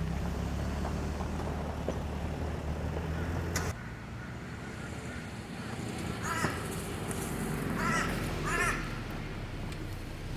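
Crows cawing, three short calls in the second half. Before them a low steady hum stops suddenly about four seconds in.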